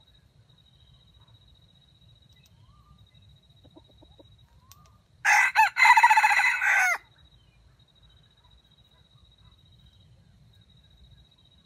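A red junglefowl rooster crows once: a short crow of under two seconds, about five seconds in, that breaks off twice partway through in a stuttering way.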